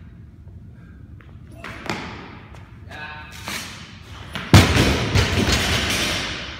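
Loaded barbell with bumper plates dropped from overhead onto the gym floor after a jerk: a loud bang about four and a half seconds in, then a noisy tail of almost two seconds as it bounces and settles.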